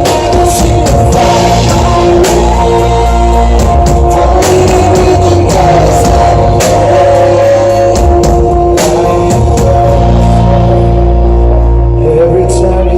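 Loud live rock band playing an instrumental passage between sung lines: held electric guitar notes over heavy bass and a steady beat of drum hits.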